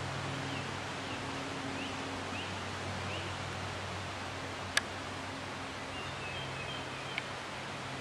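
Steady outdoor background hiss with faint, short bird chirps scattered through the first few seconds and again near the end. A single sharp click comes about five seconds in.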